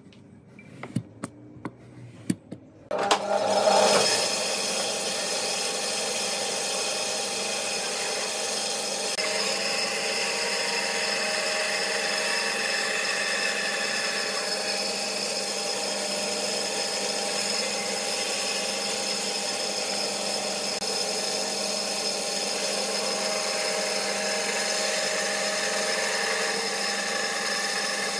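Light clicks and taps at first, then a bandsaw is switched on about three seconds in and runs steadily, its blade cutting a wooden board.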